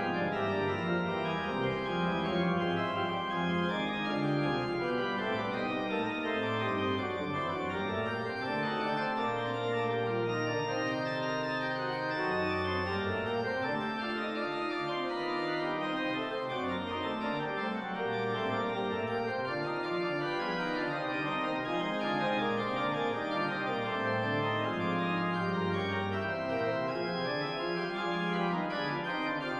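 Organ music after the dismissal at the end of Mass: full, sustained chords that change every second or so over a moving bass line.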